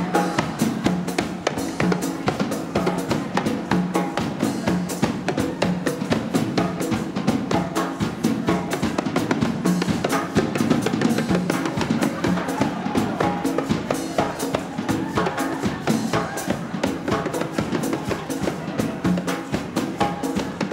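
Live dance band playing a Latin dance number, with drums keeping a steady, driving beat.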